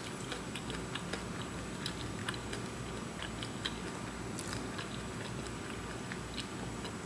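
Faint, irregular small clicks and crackles over a steady low hum, with no speech.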